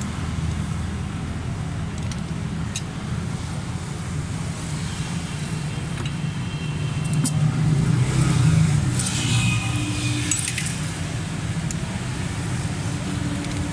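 Light metallic clicks and clinks of a ring spanner and screwdriver on the rocker-arm tappet adjusters of a Suzuki Cultus EFI cylinder head, as valve clearances that are too tight to take the feeler gauge are set. Behind them runs a steady low rumble of vehicle engine noise, which swells about two-thirds of the way in.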